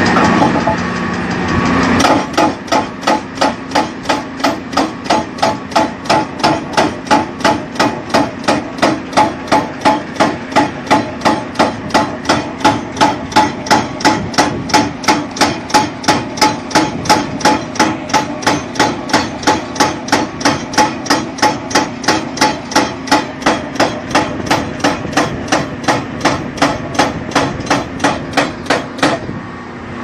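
Hydraulic rock breaker on a Volvo excavator hammering rock in a steady, even rhythm of blows, a couple to a few a second. It starts about two seconds in, with the excavator's diesel engine running underneath, and stops shortly before the end.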